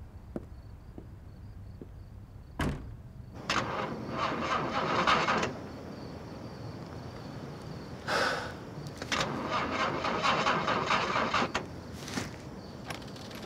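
A car door shuts with a thump, then the car's starter cranks the engine twice in long bursts without it catching: a car that won't start.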